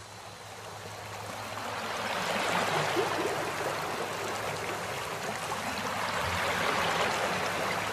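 Running water like a stream or small waterfall, a steady rushing that fades in over the first couple of seconds.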